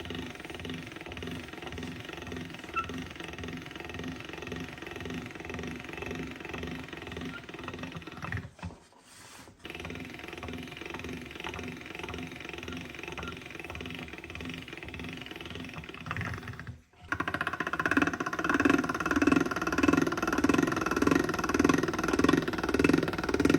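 Noodle-pressing machine running with a steady, rhythmic clatter. It breaks off briefly twice and comes back louder after the second break, about 17 s in.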